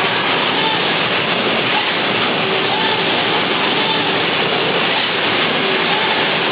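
Trumpf CNC punch press running with a Wilson Tool rolling shear cutting sheet metal: a steady rushing noise with faint short tones coming and going.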